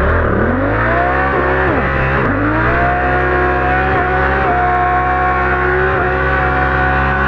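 Dirt bike engine revved hard and held at high revs as the bike sits stuck in a deep muddy rut, the rear wheel spinning without getting out. The revs dip briefly twice in the first couple of seconds, then climb a little and hold steady.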